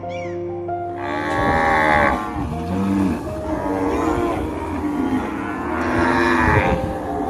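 An animal calling loudly, two long drawn-out calls, the first about a second in and the second near the end.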